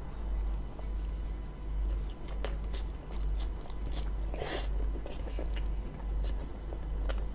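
Close-miked biting and chewing of a meat-filled roti John, with small wet clicks and smacks and one louder bite about four and a half seconds in, over a steady low hum.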